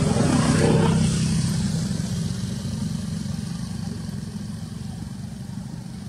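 A small engine running with a fast, even pulse, loudest about a second in, then fading steadily.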